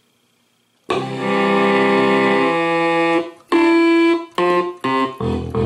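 ARP Quadra synthesizer played from its keyboard: a held chord comes in about a second in, then a shorter note, two brief notes, and a run of low notes near the end. The synth is making sound again with a replacement 8048 CPU chip in place of its dead one.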